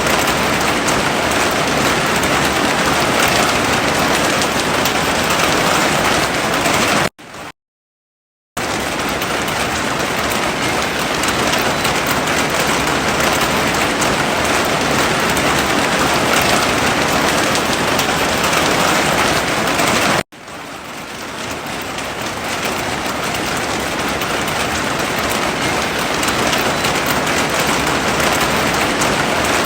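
Heavy rain falling in a dense, steady hiss. It cuts out abruptly for about a second a quarter of the way in, then cuts again about two-thirds through and fades back up over a few seconds, where the recording is spliced.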